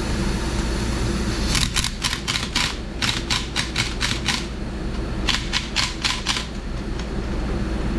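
Ratchet wrench clicking in two quick runs of evenly spaced clicks, about four a second, over the steady hum of a shop heater.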